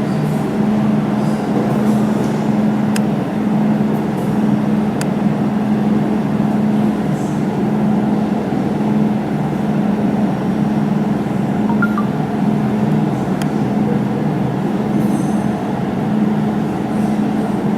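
Laser jewelry welding machine running with a steady, even hum, with a few isolated sharp ticks.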